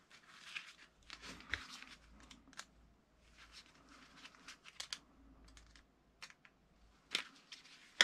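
Faint rustling and scattered small clicks of hands in coated work gloves handling wires and a cable terminal, with one sharper click about seven seconds in.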